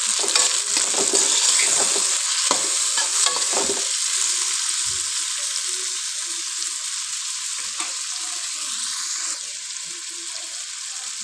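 Chopped tomatoes, green chillies and sliced onions sizzling in hot oil in a metal karahi, with a spatula scraping and stirring through the pan in the first few seconds. After that the sizzle carries on steadily, slowly getting quieter.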